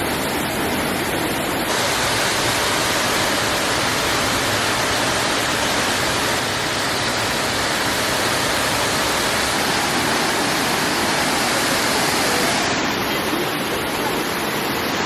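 Rutledge Falls waterfall pouring into its pool: a steady, even rush of falling water.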